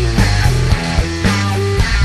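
Rock band playing live, instrumental with no singing: electric guitar over held bass-guitar notes and drum hits.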